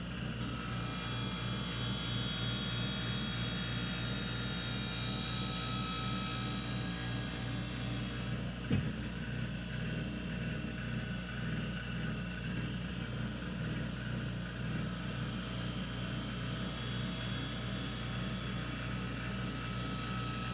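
Skate sharpening machine's hollow-grinding wheel running with a steady motor hum as a figure skate blade is drawn along it, giving a hissing grind. The grind stops about eight seconds in, leaving only the motor hum, with a short knock, and starts again about six seconds later.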